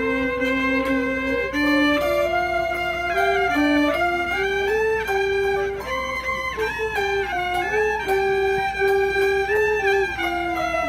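Gaohu, the Cantonese high-pitched two-string fiddle with an ebony body and snakeskin-covered soundbox, bowing a solo melody of held notes joined by slides.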